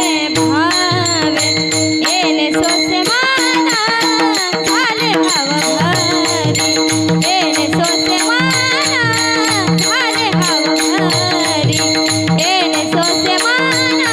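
Marathi varkari kirtan music: a woman's voice singing a long, ornamented melodic line over a steady held drone, with pakhawaj drum strokes and small hand cymbals keeping a steady beat.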